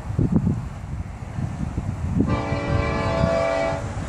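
Florida East Coast Railway diesel locomotive's air horn sounding one steady chord blast of about a second and a half, a little over two seconds in, over low rumbling and wind on the microphone.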